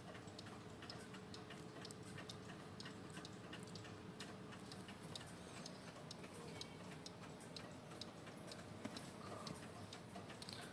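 Dutch wall clock's pendulum movement ticking faintly and evenly, a steady tick-tock.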